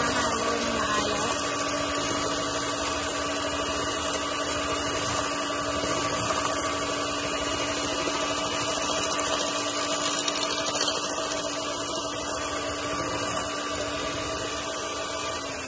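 Electric hand mixer running steadily, its beaters whirring through egg yolks and sugar in a stainless steel bowl, with a steady motor whine. Right at the end it is switched off and the whine falls as the motor winds down.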